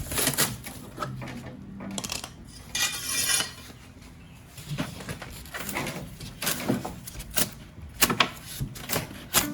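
Irregular metallic clanking and knocking, with a brief scrape about three seconds in, as metal parts and tools are handled while a refrigerator is stripped for scrap.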